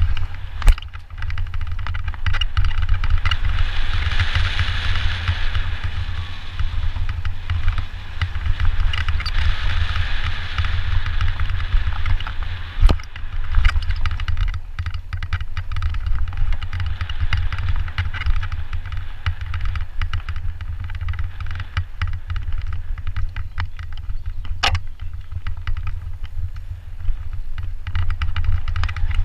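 Mountain bike riding fast over a gravel forest trail: wind rumbling on the microphone, with tyres crunching and the bike rattling over the rough surface. A few sharp knocks from bumps, about a second in, near the middle and again later.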